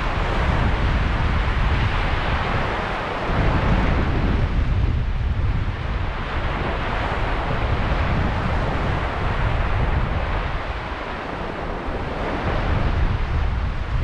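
Sea waves washing onto a sand and pebble beach, swelling and easing every few seconds, with wind rumbling on the microphone.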